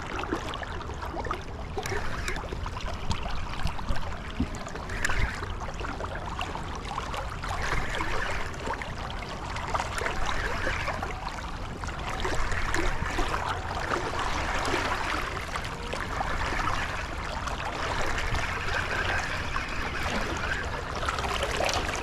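River current flowing steadily, over a constant low rumble.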